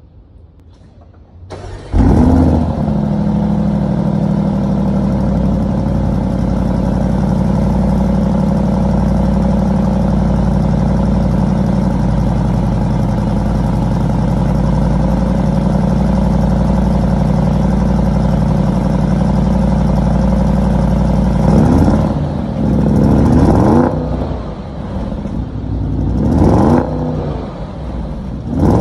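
Audi RS Q8's 4.0-litre twin-turbo V8 cold start, heard from behind at the exhaust tips: it fires about two seconds in with a loud flare, then settles into a steady idle. Near the end it gives a few short revs.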